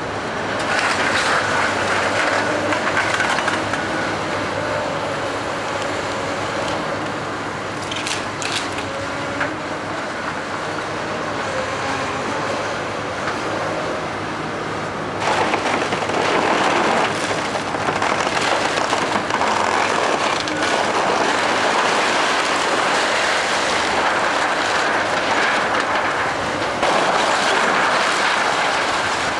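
Komatsu hydraulic excavator running while it tears apart a wood-frame house, with timber cracking and debris crashing down. The noise steps up about halfway through as the roof and wall give way.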